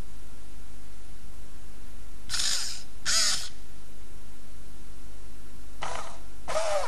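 Hacked i-Cybie robot dog's speaker giving four short animal-like calls, in two pairs about three and a half seconds apart.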